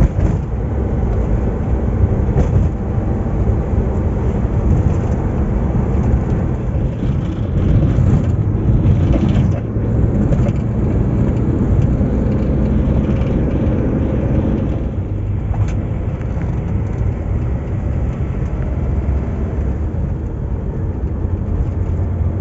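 Daihatsu Zebra Espass on the move: steady engine and road noise, with a change in the engine note about fifteen seconds in.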